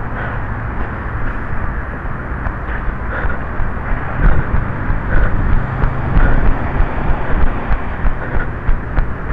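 Wind buffeting the microphone of a camera carried by a runner: a steady rumble, with thumps from the running strides jolting the camera, about three a second, growing stronger about halfway through.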